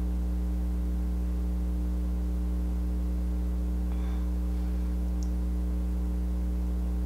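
Steady low electrical hum, like mains hum picked up in the recording. A faint soft rustle comes about four seconds in, and a tiny click follows a second later.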